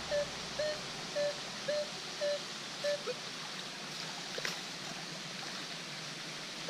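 Minelab Equinox 800 metal detector giving a short mid-pitched target tone about twice a second as the coil sweeps back and forth over a buried target; the beeps stop about three seconds in. Steady running water underneath, and one brief clack about four seconds in.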